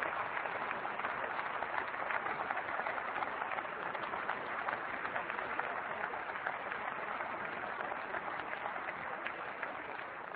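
Applause in a large parliamentary chamber: many hands clapping in a dense, even patter that slowly fades toward the end.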